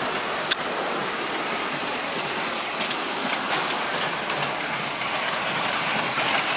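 MTH O-gauge model passenger train running on three-rail track: a steady rolling whir of wheels on the rails, with a few clicks, one sharp about half a second in.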